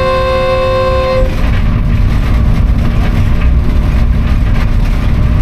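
Diesel locomotive horn sounding a steady multi-tone chord that cuts off about a second in, leaving the loud running rumble of the locomotive and train moving along the track, with a low steady engine tone coming in about two seconds in.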